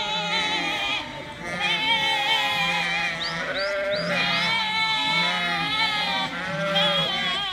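A flock of ewes and lambs bleating, many calls overlapping one another without a break, some high and some deeper.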